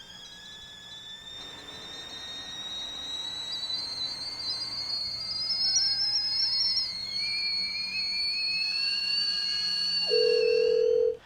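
Whistling kettle coming to the boil: several thin whistle tones that warble and rise slowly in pitch and loudness. A steady lower tone sounds for about a second near the end.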